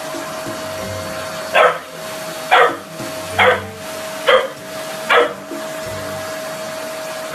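Bullmastiff puppy barking at a running vacuum cleaner: five short, sharp barks about a second apart over the vacuum's steady drone.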